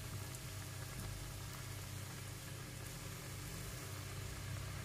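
Breaded chicken leg pieces deep-frying in hot oil, a steady sizzling and bubbling over a low steady hum.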